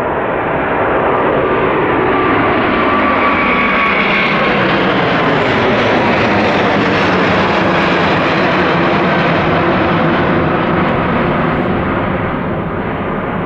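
Iberia Airbus A350-900's Rolls-Royce Trent XWB jet engines at climb power as the airliner passes overhead after takeoff: a loud jet roar, with a faint whine in the first few seconds that falls in pitch. The roar thins and fades near the end as the aircraft flies away.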